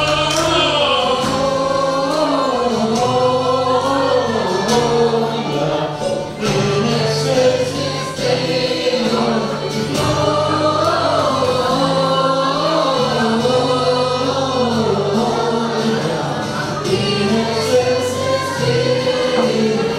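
Mixed choir of men's and women's voices singing together, over instrumental accompaniment with steady held low notes.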